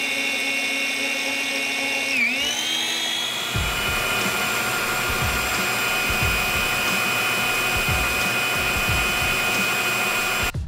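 Electric stand mixer motor running with a steady high whine while whipping egg whites; about two seconds in its pitch dips and climbs back. From about three and a half seconds soft low knocks join it, and the whine cuts off suddenly near the end.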